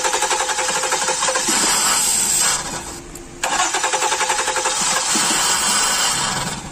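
Starter motor cranking the 2013 Ford Flex's 3.5-litre V6 in two long, even-rhythmed bursts with a short pause between, the engine not catching. This is a crank-no-start: no fuel is reaching the engine because the fuel pump module is not powering the fuel pump (code P0627, fuel pump control circuit open).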